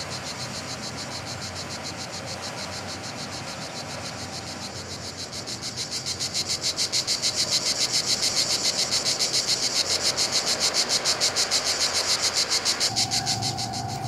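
A fast, high-pitched pulsing trill that grows louder about halfway through and stops shortly before the end.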